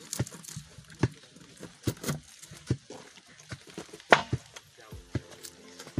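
Knife chopping red onion on a wooden table top: irregular knocks of the blade striking the wood, a few a second.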